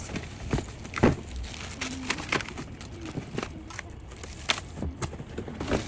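Scattered knocks, clicks and rustling as vacuum attachments and packaging are lifted out of the box and handled.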